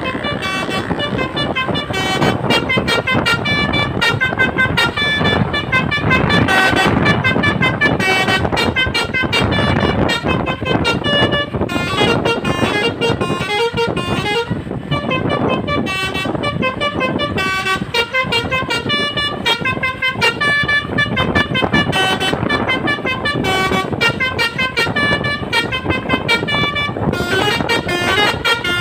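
Telolet basuri musical bus horn playing a tune: a loud, unbroken run of short horn notes stepping up and down in pitch.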